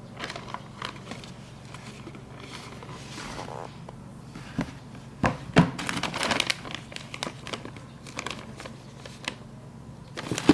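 Paper crinkling and rustling as it is handled, in irregular crackles that are densest and loudest in the middle.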